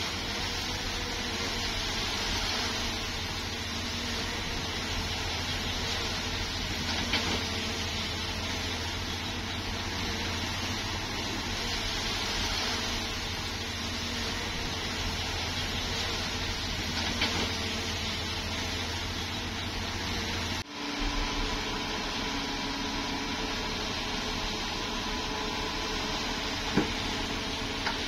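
Bulldozer's diesel engine running steadily with a constant hiss over a low drone. The sound drops out briefly about three-quarters of the way through and then carries on with a slightly different tone.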